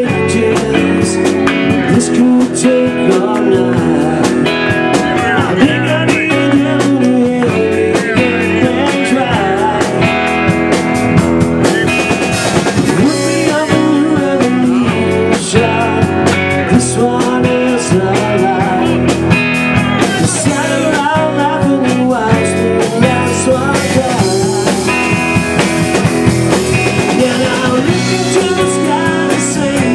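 Live rock band playing loudly: a male lead singer sings over electric guitar and a drum kit keeping a steady beat.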